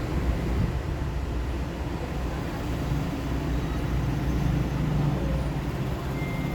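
Steady low rumble of passing vehicle traffic.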